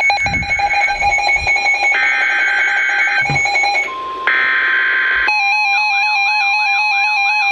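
Several NOAA weather radio receivers sounding their alert alarms together for a severe thunderstorm warning: shrill steady electronic tones that change pattern partway through, joined about five seconds in by a siren-like warble rising and falling about twice a second.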